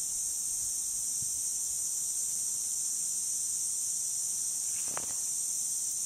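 Lawn sprinkler spray hissing steadily and high-pitched. A brief faint sound comes about five seconds in.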